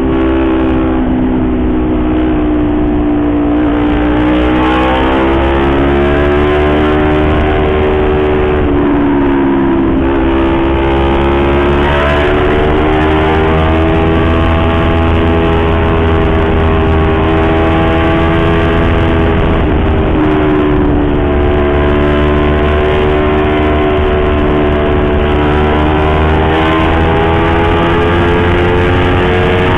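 Yamaha YZF-R25 parallel-twin engine through an aftermarket Akrapovic exhaust, under way with its note climbing and falling several times as the throttle is worked. The pitch drops sharply about a third of the way through and again about two-thirds of the way through.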